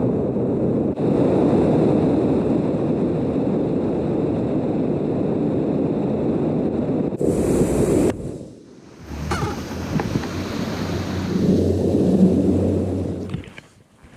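Bass boat running at speed across the lake: steady wind noise on the microphone and rushing water. About eight seconds in the noise drops off sharply, then a lower engine hum comes back and fades near the end.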